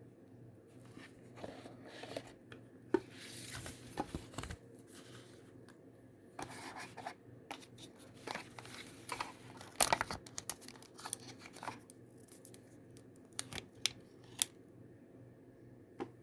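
Packaging of a pair of Samsung Galaxy Buds being handled and opened: rustling and tearing, with scattered sharp clicks, the loudest about three seconds in and again near the ten-second mark.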